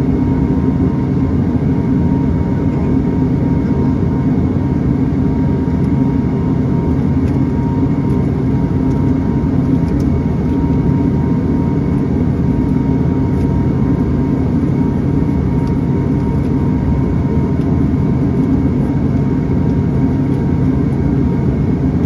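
Pilatus PC-12's single Pratt & Whitney PT6A turboprop engine running steadily, heard from inside the cabin: a loud, even drone with a thin steady whine above it.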